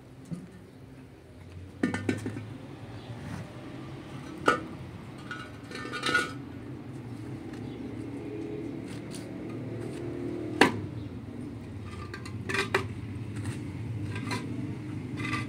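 A handful of sharp knocks and clinks as concrete blocks and metal pieces are picked up and set down on a concrete yard, over a steady low hum.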